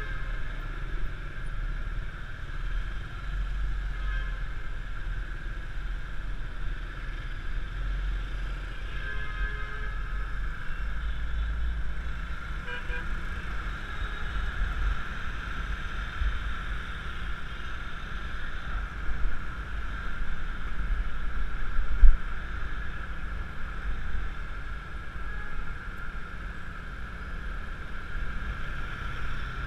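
Riding noise on a Yamaha Mio Classico scooter in city traffic: steady, heavy wind rumble on the helmet camera's microphone over road and engine noise. Other vehicles sound a few short horn toots, and there is one sharp thump about 22 seconds in.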